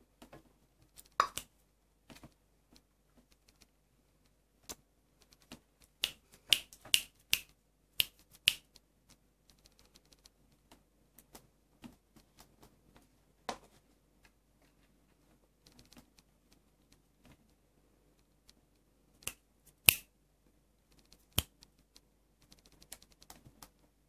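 Sharp wooden clacks and taps at irregular intervals as a kitten bats at and climbs through a wooden bead maze toy, beads and blocks knocking on the wire loops and frame. They come most often in a quick run about six to eight seconds in, with a few single loud clacks later on.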